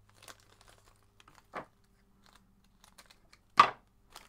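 Light clicks, taps and rustles of fly-tying materials being handled at the vise, with one sharper click about three and a half seconds in.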